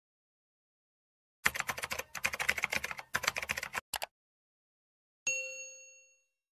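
Sound effects: rapid computer-keyboard typing clicks for about two and a half seconds, a single sharp mouse click, then a notification bell ding that rings out and fades within a second.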